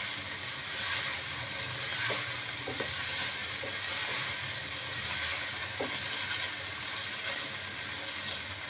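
Diced chicken and onion sizzling in a non-stick pot while being stirred with a spatula. The steady frying hiss carries a few light scrapes of the spatula against the pan.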